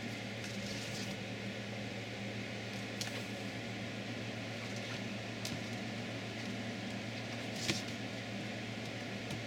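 Steady low hum and hiss of background room noise, with a few soft clicks and rustles, the loudest about three-quarters of the way through.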